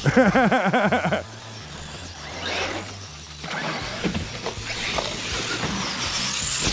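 Electric RC monster truck motor whining, its pitch rising and falling quickly several times in about the first second as the throttle is pumped. After that comes a quieter rough noise with a few short ticks.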